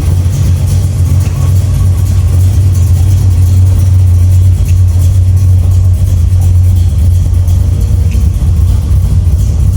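Holden VH SS Commodore V8 idling with a steady, deep, low exhaust rumble.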